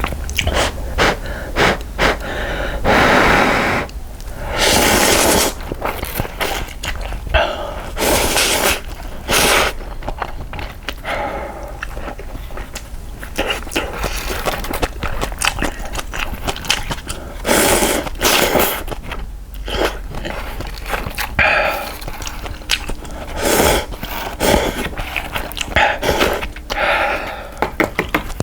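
Close-miked eating of instant cup ramen: repeated short, airy slurps of noodles and broth with chewing in between.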